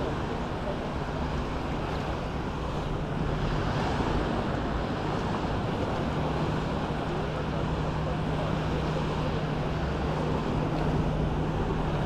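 Small sea waves washing onto a sandy beach: a steady wash of surf that swells slightly about three seconds in. A steady low hum runs underneath.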